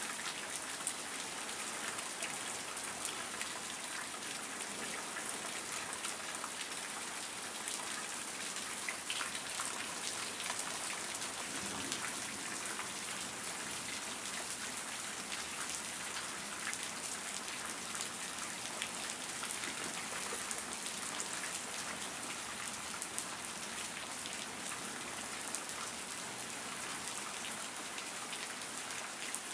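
Steady rain falling on grass and a wet concrete sidewalk. Countless small drop hits blend into an even hiss that holds at the same level throughout.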